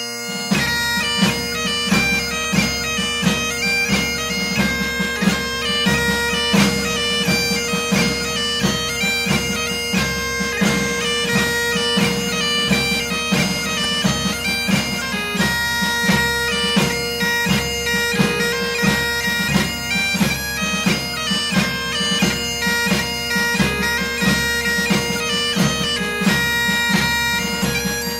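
Background music: a melody played over a steady held drone, with a regular drum beat.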